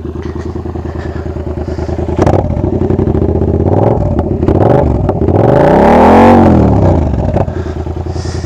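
Yamaha MT-07's 689 cc crossplane parallel-twin engine, breathing through a Jeskap GP3 full exhaust with the dB killer removed, idling warm and then blipped a few times. One bigger rev rises and falls back around six seconds in, then it settles to a pulsing idle.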